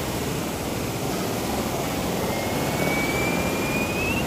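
Jet ski engine running out on the sea, its whine rising slowly in pitch through the second half as it speeds up, over a steady rushing noise of wind and water.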